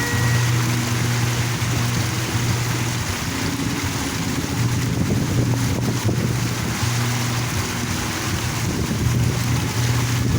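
Park water fountain splashing steadily, with wind buffeting the microphone.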